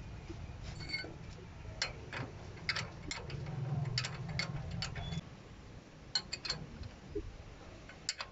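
Irregular sharp metallic clicks and taps of tools and brake parts being handled during truck drum-brake reassembly, over a low hum that stops about five seconds in.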